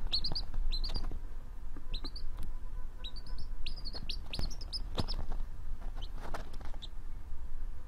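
Baby chicken chick peeping: short, high-pitched peeps in quick runs of three or four, with brief pauses between the runs.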